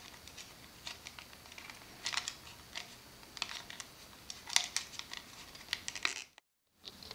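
Light, irregular clicks and ticks of plastic and wire being handled: insulated wires being pressed into the push-in connector on the back of an LED driver. The sound cuts out to silence for about half a second near the end.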